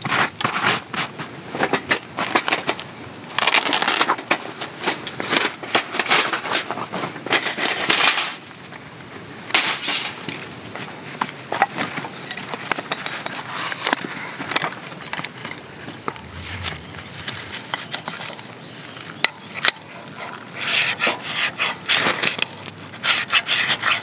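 A gloved hand sweeping dry fallen leaves and forest litter off bare soil, a dense rustling scrape. Then a few scattered clicks and knocks of handling fire-lighting gear. Near the end comes a quick run of scraping strokes as a ferro rod is struck over a pile of wood shavings to throw sparks.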